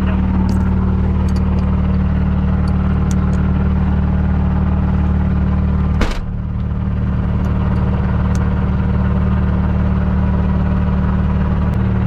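Turbocharged rally car engine idling steadily, with a single sharp knock about six seconds in.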